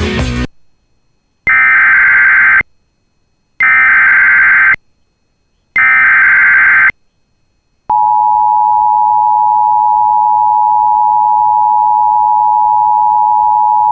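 Emergency Alert System activation: three identical bursts of screeching digital header data, each about a second long with short silences between, then near eight seconds in the steady EAS attention tone starts and holds. Together they announce an incoming severe thunderstorm warning.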